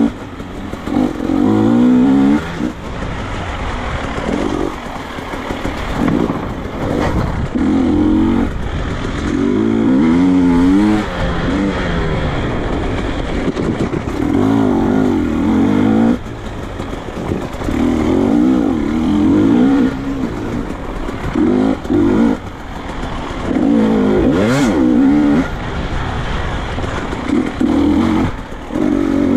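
Enduro motorcycle engine revving in repeated short bursts of throttle, each a second or two long, its pitch swinging up and down, with lower running between the bursts.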